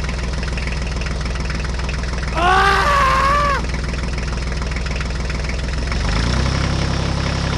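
Steady engine idling sound, typical of a toy vehicle's sound effects, shifting to a slightly different pitch about six seconds in. A short sliding voice-like call sounds about two and a half seconds in.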